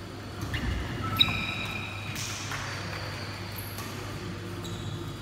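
Badminton rally on a wooden indoor court: a sharp racket hit on the shuttlecock about a second in, the loudest sound, with short high squeaks of sneakers on the floor around it.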